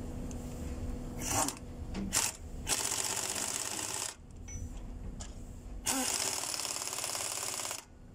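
Pneumatic impact wrench hammering on bolts on a Mercedes-Benz Actros truck's cylinder head. It gives two short bursts, then two longer runs of about a second and a half and two seconds.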